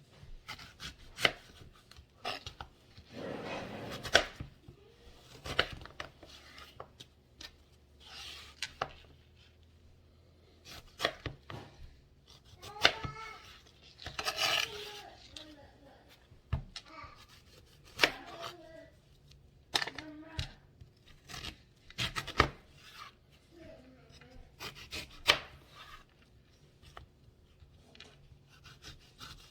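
Knife cutting Bartlett pears on a cutting board: irregular sharp knocks as the blade strikes the board.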